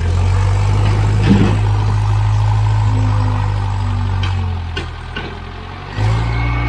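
Hough 30 payloader's engine running steadily under load, easing off for about a second and a half near the end before picking up again, with a few short knocks.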